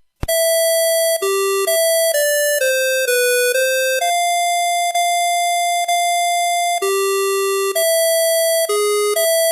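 Astrofone M51i mobile phone playing a ringtone through its speaker: a single-voice electronic melody of bright, steady notes with one long held note in the middle. It starts just after a brief click and gap at the beginning.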